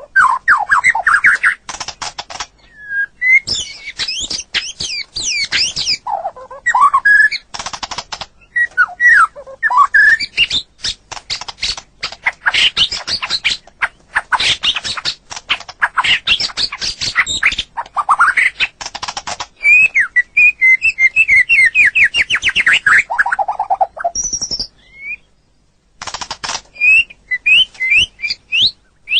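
White-rumped shama (murai batu) singing a long, varied song: clear whistled notes and rising and falling phrases mixed with fast, harsh rattling runs, with one short pause near the end.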